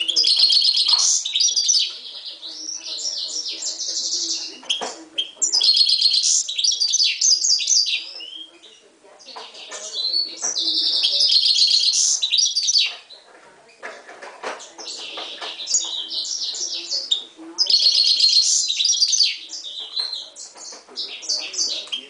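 Himalayan goldfinch mule, a goldfinch × canary hybrid, singing in a cage. Its song comes in phrases of fast, high twittering trills and warbles, each two to three seconds long, with short pauses between them.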